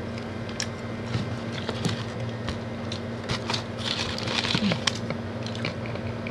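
Cardboard takeout boxes and a small plastic sauce cup being handled: scattered clicks and crackly rustling that bunch together about three to five seconds in, over a steady low hum.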